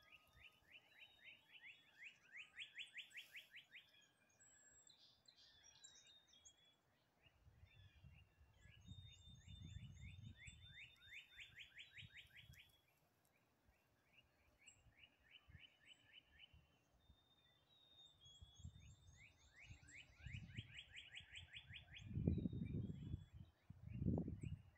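A songbird singing a short, rapid trill of many quick notes, repeated about every eight to nine seconds, with fainter high-pitched bird trills between. Low rumbling buffets on the microphone come in the last few seconds, louder than the birdsong.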